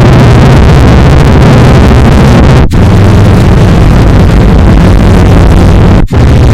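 A sneeze sound effect put through stacked vocoder and pitch effects until it is a harsh, clipped wall of distortion with a low buzzing hum underneath. It cuts out for an instant twice, about two and a half seconds in and again near the end.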